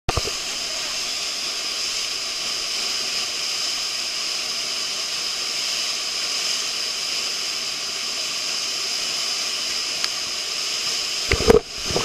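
Waterfall crashing down close by: a steady, unbroken rush of falling water and spray. A few loud thumps come near the end.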